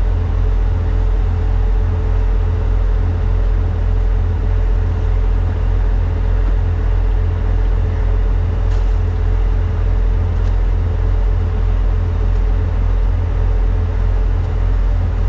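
Engine drone under way: a steady, loud low rumble with a constant hum above it.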